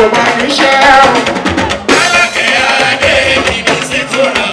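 Live Fuji music: a man singing into a microphone over a band of drums and percussion.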